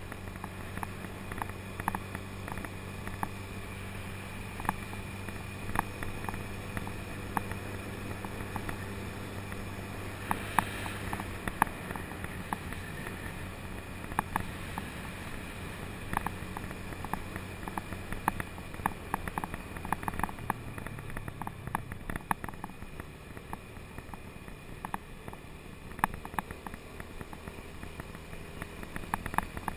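Motor scooter's engine running steadily while riding, its hum easing off about a third of the way in, with scattered small clicks and knocks throughout.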